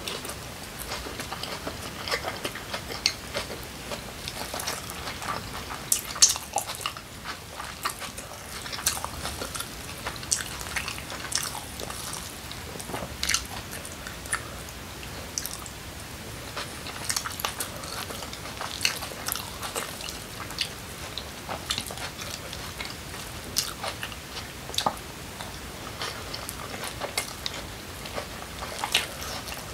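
Close-miked biting and chewing of kimchi pancake: an irregular run of wet clicks and smacks from the mouth.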